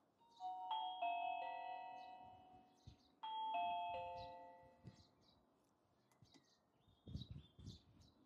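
Doorbell chime rung from a Reolink video doorbell's button: a short melody of several ringing notes that fade out, played twice about three seconds apart.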